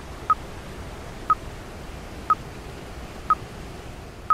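Five short electronic beeps, one a second at the same pitch, counting down the last seconds of a workout interval timer. They sound over a steady rushing noise of waterfall ambience.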